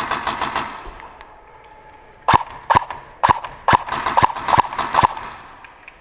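Airsoft guns firing semi-automatic shots that echo in a large hall: a quick cluster at the start, then about eight shots roughly half a second apart from a little after two seconds in.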